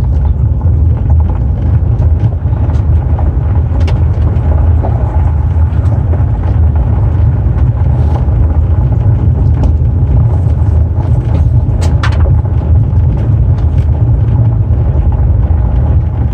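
Steady road noise inside a car's cabin: a low rumble of engine and tyres rolling over a gravel road, with a few sharp clicks about 4 seconds in and again around 12 seconds.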